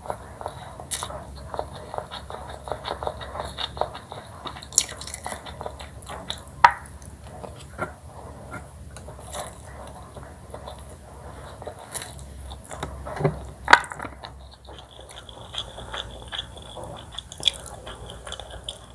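Close-miked eating: continuous chewing with many irregular crisp, crunchy bites. The loudest are two sharp cracks, about a third of the way in and two thirds of the way in.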